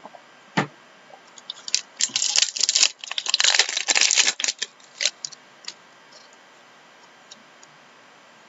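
Trading cards and their packaging being handled on a table: one sharp click, then a few seconds of crinkling, rustling and scraping that thins out to a few last clicks.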